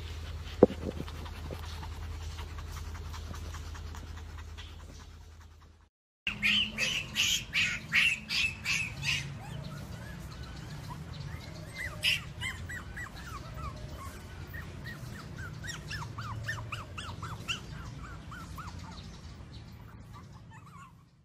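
A litter of Pomeranian puppies yapping in quick high-pitched bursts, about four a second, then squeaking and whining in many short falling cries. Before them comes a steady low hum with two sharp knocks at the start, cut off by a moment of silence.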